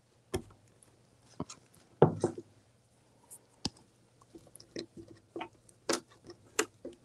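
Hands handling poly burlap mesh petals and a thin tie on a cutting mat: irregular small clicks and crinkly rustles, with a louder knock about two seconds in.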